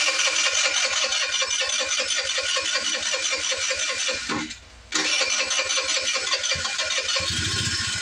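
GY6 50cc scooter's electric starter cranking its single-cylinder four-stroke engine in a rhythmic whir, about seven beats a second. It stops briefly about four seconds in, cranks again, and the engine catches and starts running near the end. The engine is slow to catch, which the owner puts down to bad gas after it has sat unused.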